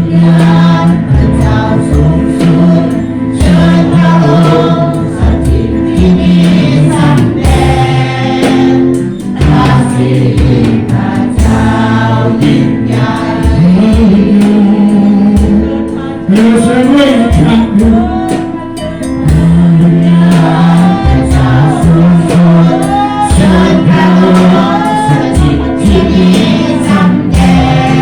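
Christian worship song: a group singing together over guitar and a steady beat.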